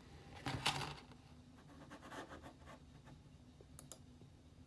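A short scraping rustle of hands handling things at a desk about half a second in, followed by a few faint clicks.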